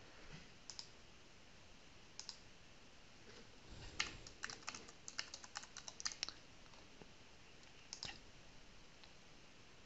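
Faint computer keyboard typing: a quick run of about a dozen keystrokes starting about four seconds in, with a few single clicks before and after it.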